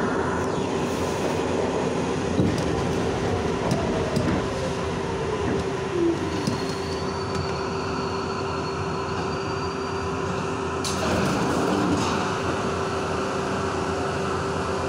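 R62 subway car running through a tunnel: a steady rumble of wheels on rail with a constant hum and a few sharp clacks over rail joints in the first half. A faint high whine comes in about halfway.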